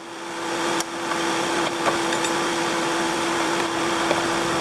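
Electric shop fans blowing: a steady whooshing hum with one constant tone, rising back to full level over the first second, with a couple of light clicks.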